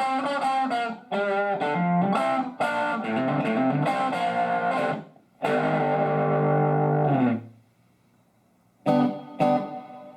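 Electric guitar played through a Fender EL84 valve combo amp: a run of picked notes and chords, then a chord held for about two seconds that fades out, a short pause, and a few sharp picked notes near the end.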